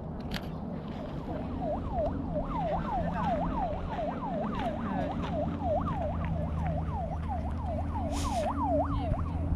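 Siren in a fast yelp pattern, about three quick wails a second, starting about a second in, over a steady low traffic rumble.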